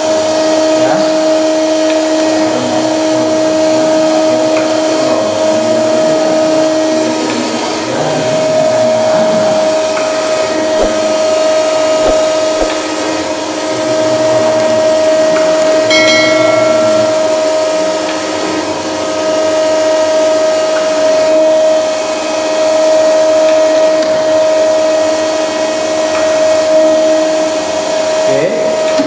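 Conventional surface grinder running, its motors giving a loud steady hum with two held tones, while the table traverses back and forth on automatic feed. The lower tone drops out for a few seconds about a third of the way in and again just before the end.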